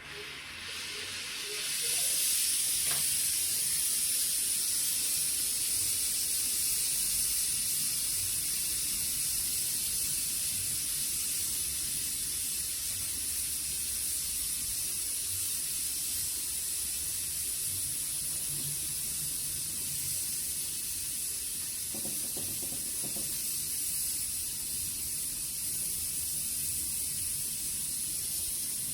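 Oxy-fuel brazing torch burning with a steady hiss, coming up over the first two seconds and then holding even.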